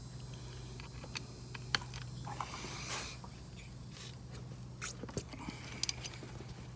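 Scattered light clicks, taps and scrapes of a hand wrench working on a brake caliper's T30 pad-pin screws to break them loose, over a steady low hum.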